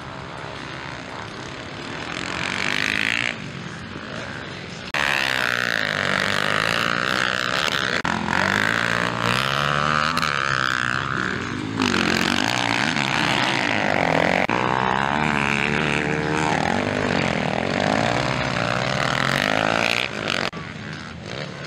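Several motocross dirt bikes' engines revving up and down as they ride a dirt track, their pitch rising and falling with the throttle. Much louder from about five seconds in, when the bikes pass close.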